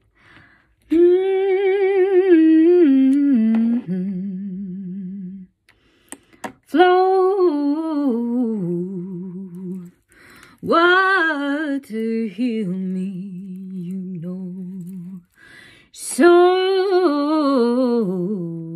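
A woman's voice singing without words in an improvised vocal warm-up: four phrases, each starting high and stepping down to a long held low note with a slight waver.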